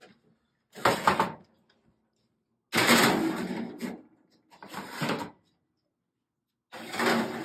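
Metal sheet pans sliding onto the wire racks of an open oven. Four rough metal scrapes and clatters, the longest and loudest about three seconds in.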